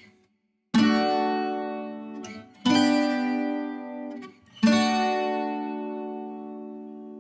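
Music: three plucked-string chords, each struck about two seconds after the last and left to ring out and fade slowly.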